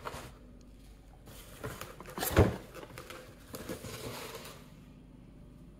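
Cardboard box and packing paper being handled while a plastic foam sprayer is lifted out, with one sharp knock a little over two seconds in and some rustling later.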